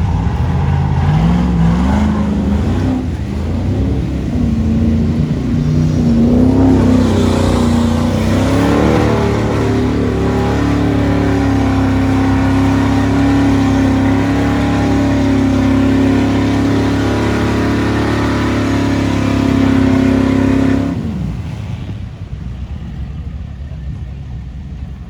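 Off-road 4x4's engine revving hard and held at high revs, straining on a difficult section, then dropping off suddenly about four fifths of the way through.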